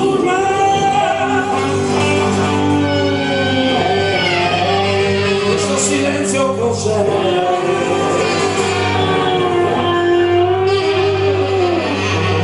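Live band playing a song, a man singing long held notes over electric guitar, drums and a steady bass line.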